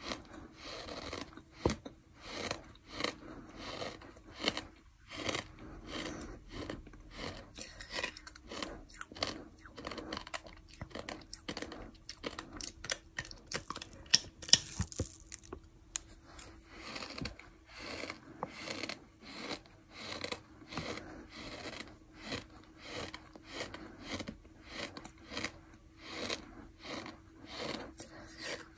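Someone chewing a mouthful of dry fine sand: a gritty crunch repeating about twice a second. There is a louder sharp click about halfway through.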